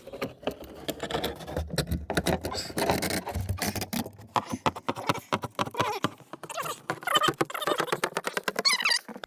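Rapid, dense clicking and clattering of hand tools working the faucet's fittings tight, with some wavering higher-pitched sounds near the end.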